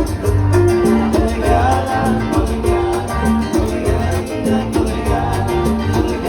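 Background music with a steady beat: an upbeat Latin-style track with bass, guitar and percussion.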